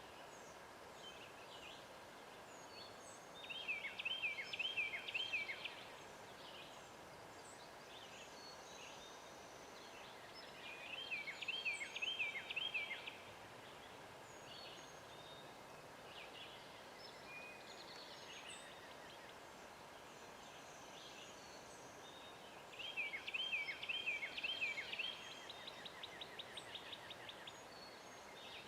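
Wild turkey yelping: three short series of about five yelps each, several seconds apart, the last followed by a fast run of short notes. Songbirds chirp faintly in the background.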